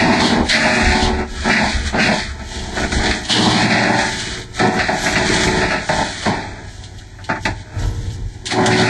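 Heavily distorted, effect-processed audio of a Fisher-Price Laugh & Learn talking puppy toy, coming in loud, harsh bursts with short breaks. It is quieter for a couple of seconds near the end.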